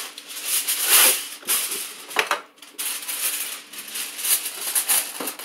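Aluminium foil crinkling and rustling in irregular bursts as a sheet is torn off a Reynolds Wrap roll and handled over a foil pan, with one sharp crackle about two seconds in.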